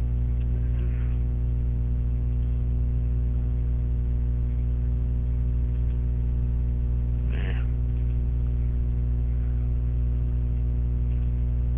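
Steady electrical mains hum in the recording, low and even throughout. A brief soft sound comes about seven and a half seconds in.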